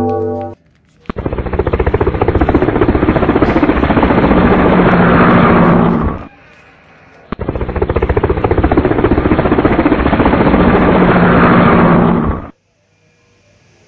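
Aircraft engine sound effect: a loud, rapidly pulsing engine noise that builds, played twice for about five seconds each with a short gap between, and cut off sharply near the end. A moment of background music ends just before it starts.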